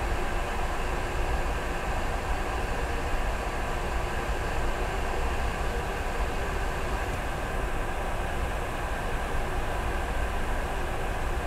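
Steady cabin noise inside a Boeing 717 stopped on the ground, its rear-mounted Rolls-Royce BR715 turbofans idling: an even hum and rumble with no change.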